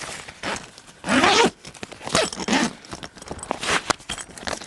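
Ice fishing tent's door zipper being pulled open in several quick strokes, each a sliding rasp.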